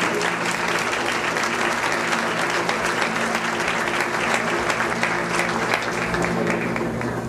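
A large seated audience applauding, the clapping dying away near the end.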